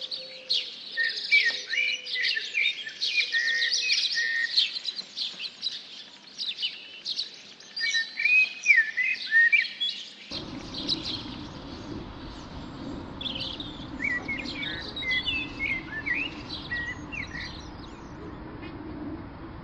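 Small songbirds chirping and twittering in many quick, short calls. About ten seconds in, a steady low rushing noise sets in abruptly under the birdsong, which carries on.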